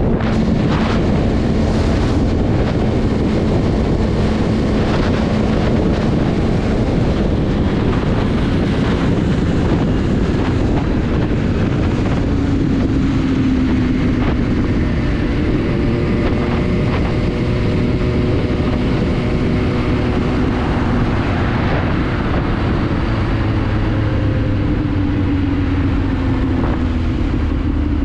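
Sport motorcycle riding at highway speed: loud wind rush over the microphone with the engine's steady note underneath. A few sharp clicks come in the first couple of seconds, and near the end the engine note slowly drops as the bike eases off toward slower traffic.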